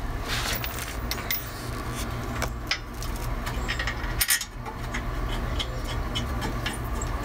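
Metal clicks and scrapes as a Honda S2000 rear brake caliper bracket is fitted over a slotted rotor and held against the hub knuckle, with a sharper knock about four seconds in and light ticks near the end, over a steady low rumble.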